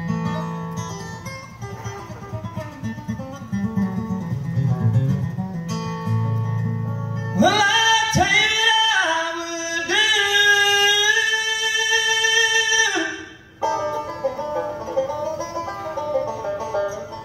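Bluegrass band playing live on banjo and acoustic guitars, with singing that comes in about seven seconds in and breaks off about thirteen seconds in.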